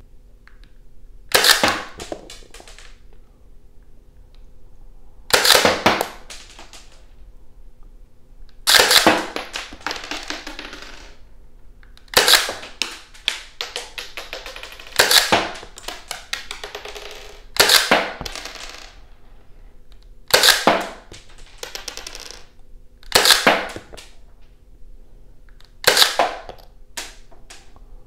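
Toy Mauser M712 electric blowback pistol firing 7 mm darts in semi-auto, about ten single shots spaced roughly three seconds apart. Each shot has a brief mechanical tail as the action cycles.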